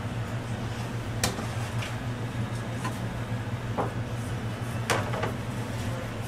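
Kitchen clatter while a fish is filleted with a knife on a cutting board: a few sharp knocks and clinks, the loudest about a second in and again about five seconds in, over a steady low hum.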